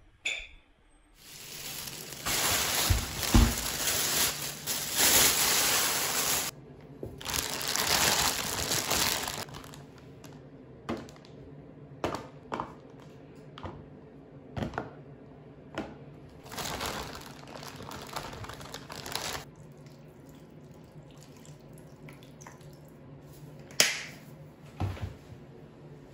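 Thin plastic bag crinkling in long stretches while pressed sake lees are pulled out and crumbled by hand into a plastic food container, with scattered light taps between, and one sharp click near the end.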